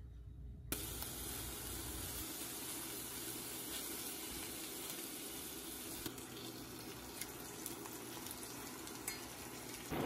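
Kimchi and pork sizzling as they are stir-fried with chopsticks in a stainless steel pan. The sizzling starts suddenly under a second in and holds steady, with a few light clicks.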